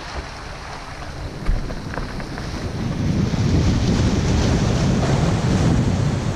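Wind buffeting the microphone over the wash of waves on the jetty rocks. The gusts grow louder about three seconds in, and there is a short knock about a second and a half in.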